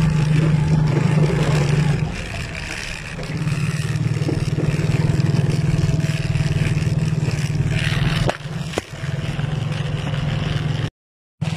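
Small motorcycle engine running steadily under way on a rough, muddy dirt road. The engine note eases off briefly about two seconds in and again around eight seconds, and the sound cuts out for a moment near the end.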